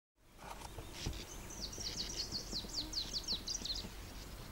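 A songbird singing one phrase of about a dozen quick, high notes, each sliding down in pitch, over faint outdoor background noise.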